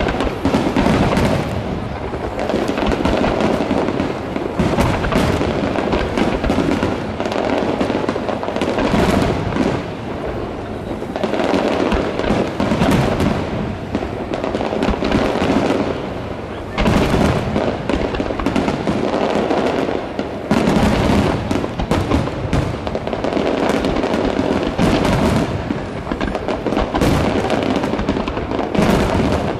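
Fireworks display with shells bursting and crackling in quick, overlapping succession throughout, and a stronger burst a little past the middle.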